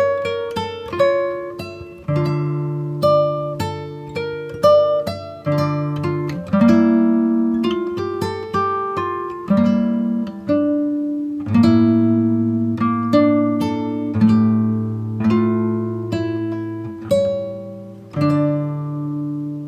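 Acoustic guitar music: plucked notes and strummed chords that ring out and fade, in a slow, even rhythm.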